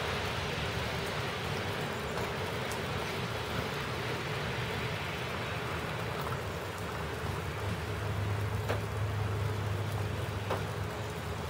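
Steady hiss of outdoor background noise, with a low hum coming in for a few seconds past the middle and two faint clicks.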